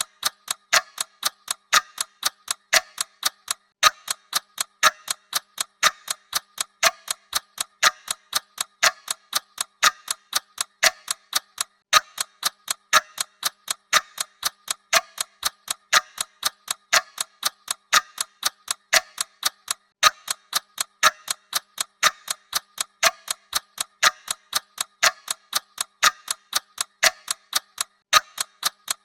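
Clock ticking sound effect: rapid, even mechanical ticks, several a second, in a steady unbroken rhythm.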